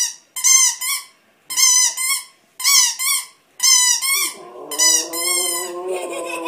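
Rubber squeak toy squeezed about once a second, each squeeze a high double squeak. A little over four seconds in, a dog starts one long howl, rising slightly and then falling, held under the last squeaks.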